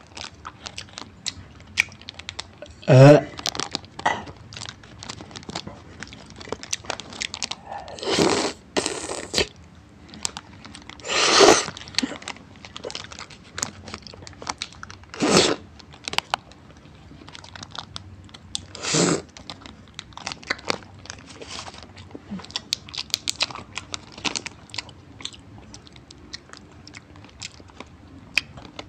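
Close-miked mukbang eating: crunching and chewing with many sharp crackling clicks and the rustle of a paper wrapper, with several louder rustling bursts and a short vocal sound about three seconds in.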